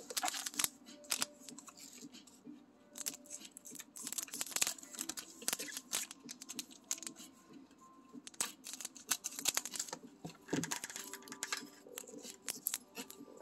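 Scissors snipping and foil booster-pack wrappers crinkling as Pokémon card packs are handled and cut open: a scattered run of sharp snips and rustles.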